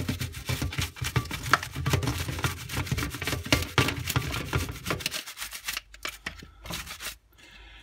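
Rapid scratchy rubbing and clicking as plastic Dyson vacuum cyclone parts are scrubbed and handled. The strokes are dense for about five seconds, then thin out to a few clicks near the end.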